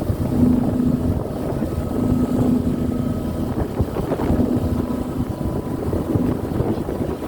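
Bus engine and road noise heard from inside the moving bus, a steady low rumble with a hum that swells and fades, and wind buffeting the microphone.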